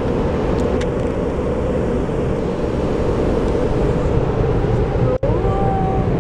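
Automatic car wash heard from inside the car: a steady, loud rush of the wash machinery and water spray. After a sudden break about five seconds in, the rush goes on with a faint steady whine as the car passes the dryer blowers.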